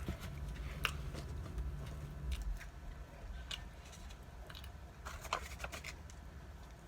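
Eating sounds from a mukbang: scattered small clicks and smacks of chewing and handling food, a cluster of them about five seconds in, over a steady low hum.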